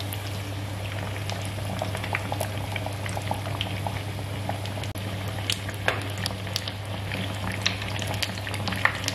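Batter-coated bread pakora deep-frying in hot oil in a wok: a steady bubbling with many scattered crackles and pops, over a low steady hum.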